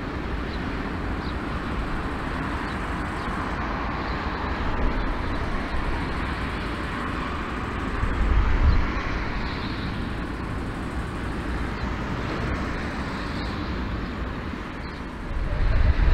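Jet engines of a four-engine airliner running at low power while taxiing, a steady rumble and hiss. The low rumble swells briefly about eight seconds in and again near the end.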